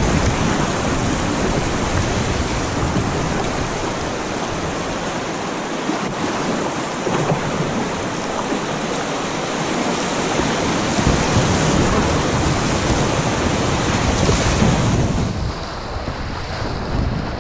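Rushing whitewater of a river rapid splashing around a kayak as it runs down through it, with wind buffeting the microphone.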